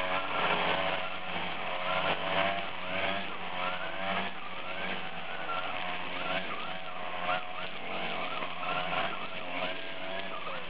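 Gas-powered string trimmer running steadily while cutting grass, its engine pitch wavering up and down.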